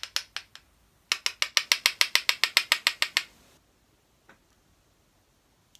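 Quick, evenly spaced light clicks from a makeup brush worked against a small plastic powder pot: a short run, then a faster run of about twenty clicks over some two seconds that stops just past the middle.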